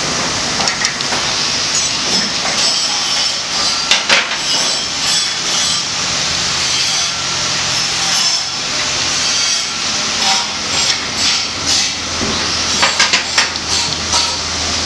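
Twisted steel bar scraping and clinking against a bench vise and its bending form as it is curled by hand, with clusters of sharp metal clicks about four seconds in and near the end, over a steady workshop noise.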